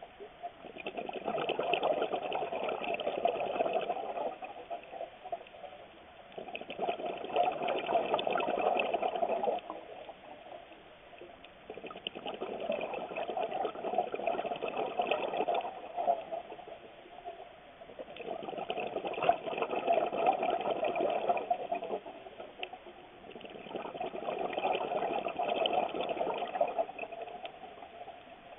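Scuba diver breathing through a regulator underwater: five long bursts of exhaled bubbles, each lasting about three seconds and coming about every five to six seconds, with quieter gaps for the inhalations between.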